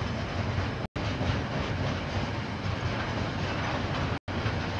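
KiwiRail train rolling past, its wheels and cars making a steady rail noise. The audio drops out for a split second twice, about a second in and near the end.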